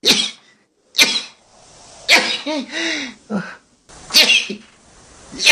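A person sneezing in rapid succession, about five sharp sneezes roughly a second apart, with a short voiced sound between two of them.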